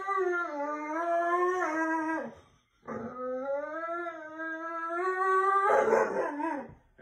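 Dog howling: one long, wavering howl that breaks off about two and a half seconds in, then a second long howl that turns rough near the end.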